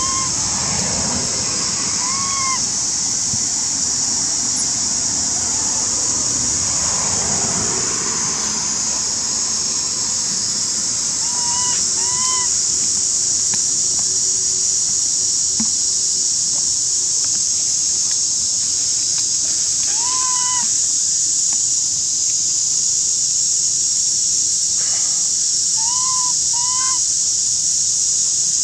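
A steady, high-pitched drone of forest insects, the loudest sound throughout, with short rising-and-falling calls of an animal several times, mostly in pairs, and soft rustling in the first few seconds and again about seven seconds in.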